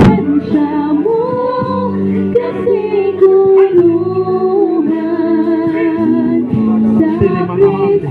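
Worship music with singing: held sung notes over a steady band accompaniment.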